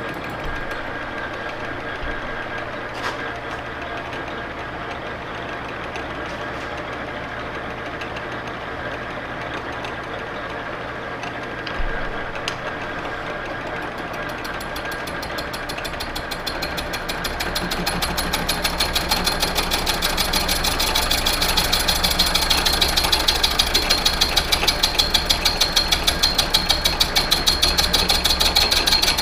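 Victor lathe turning the built-up end of an electric motor rotor shaft with a cutting tool: steady machine running with cutting noise. Over the second half the cut grows louder and takes on a fast, regular pulsing.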